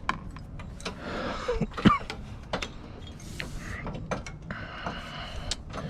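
Scattered clicks and knocks of tools and parts being handled while an item is taken apart for scrap, with two short bursts of hiss or scraping about three seconds in and near the end.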